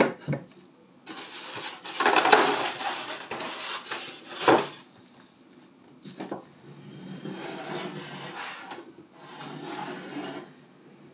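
Handling noise from a cling-wrapped clear plastic display case on a wooden base being lifted out of its foam packaging and set down on a table: rustling and scraping that comes and goes, with a few sharp knocks, the loudest about four and a half seconds in.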